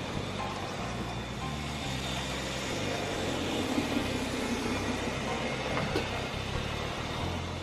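Lima OO gauge Crab 2-6-0 model locomotive running with its coaches: a steady hum from the motor bogie in its tender, with a few light clicks from the wheels on the track. It runs smoothly after a service of its motor.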